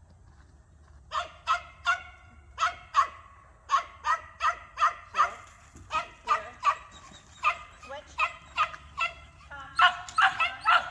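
A dog barking over and over in short, high-pitched barks, about two or three a second, starting about a second in and coming faster and louder near the end.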